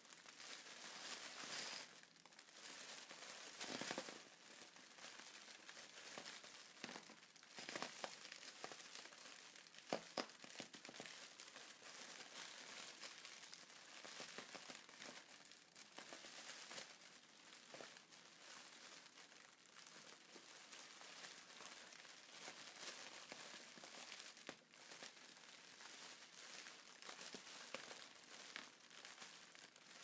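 Inflatable plastic air-pillow packaging being handled: continuous crinkling and rustling of the thin film, with occasional sharper crackles.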